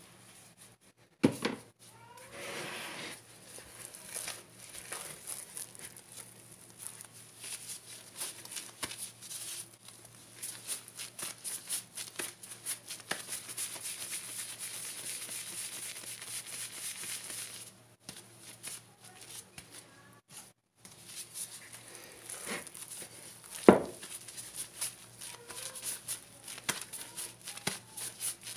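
Plastic-gloved hands crinkling and rustling as they knead and roll methi paratha dough into balls, with two sharp knocks against the dishes, one just after the start and one later on.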